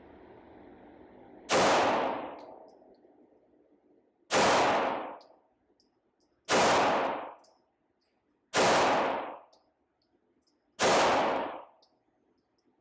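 Five single shots from a Laugo Arms Alien Creator 9mm pistol, fired slowly about two seconds apart. Each is a sharp report that dies away over about half a second in the echo of an indoor shooting range.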